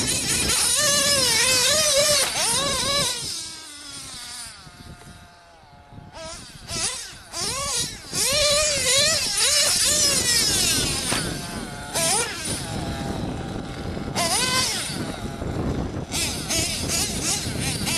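Modified JL21 Big Block .21 nitro engine in an OFNA Hyper 10SC RC short-course truck, revving up and down in a rising and falling whine as the truck is driven on and off the throttle. It drops away for a couple of seconds around four to six seconds in, then comes back loud.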